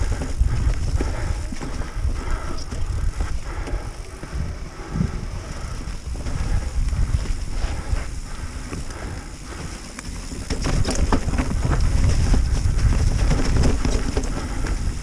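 Mountain bike being ridden down a trail: wind buffets the microphone over the rumble of tyres on the ground and scattered rattles and clicks from the bike. It gets louder from about ten seconds in.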